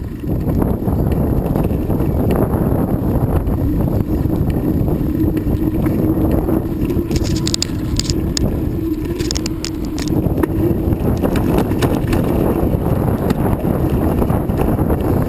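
Wind rushing over the microphone of a camera on a moving bicycle, with a steady rumble of tyres on the road. A steady hum runs through the middle, and two quick clusters of sharp ticks come about halfway through.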